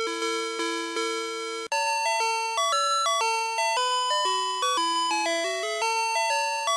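VTech Alphabert's Sonic Phonix toy playing an electronic song in bell-like synthesized tones. A slow two-note back-and-forth cuts out briefly under two seconds in, then a quicker melody starts.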